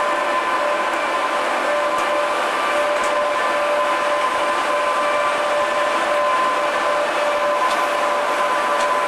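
An electric locomotive moving slowly past with its train, giving a steady electric whine made of several held tones over a continuous running noise.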